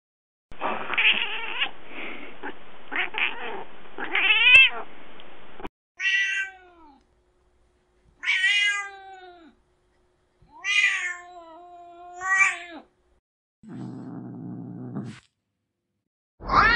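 Recorded cat sound clips played back one after another from a cat-sounds soundboard app. They are mostly meows, about six in all, with a short low buzzing sound near the end, and each clip cuts off cleanly into silence before the next.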